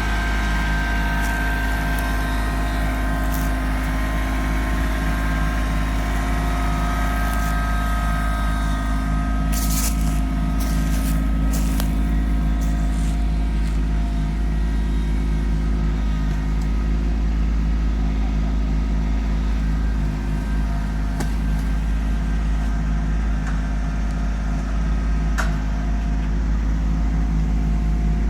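Kubota LX2610 compact tractor's three-cylinder diesel engine running steadily. A few sharp knocks come about ten to twelve seconds in and once more near the end.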